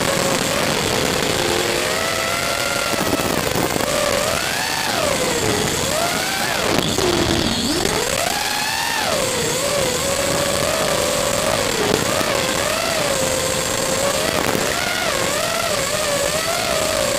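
Brushless motors and propellers of a 5-inch FPV racing quadcopter whining in flight, the pitch rising and falling constantly with throttle, over a steady hiss. About seven seconds in the pitch drops sharply and then climbs back as the throttle is cut and punched.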